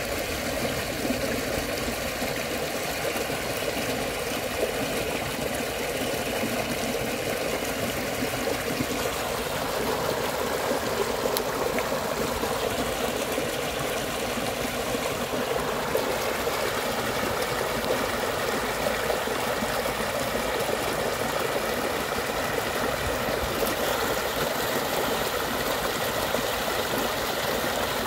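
Shallow muddy stream rushing steadily over small drops in its clay channel.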